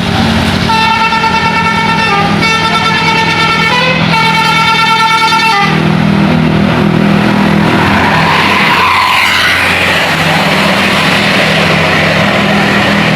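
Tour bus 'telolet' multi-tone musical horn playing a short tune in three phrases that step between notes, then the bus engine and road noise running on after it stops, about halfway through.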